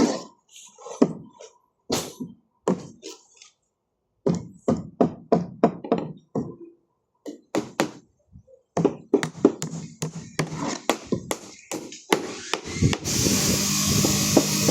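Repeated sharp knocks and thuds, like construction work, in runs of about three a second with pauses between. A steady motor-like whir starts near the end.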